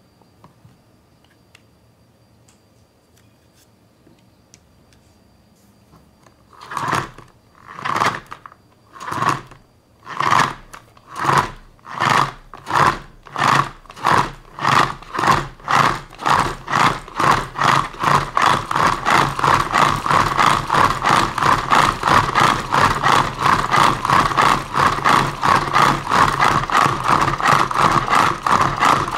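Hand-cranked plastic egg spinner whirring as its crank turns a raw egg in its shell to mix the yolk and white. It begins after a few quiet seconds as separate pulses about a second apart that come faster and faster until they run together into a nearly continuous rattling whir.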